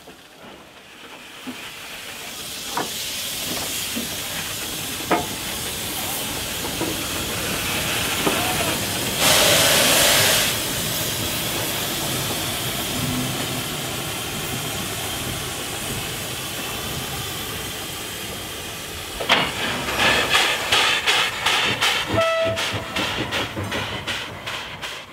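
Steam locomotive hissing steadily, with a brief loud blast of steam about nine seconds in. Near the end it starts working, with quick, regular exhaust chuffs about three a second.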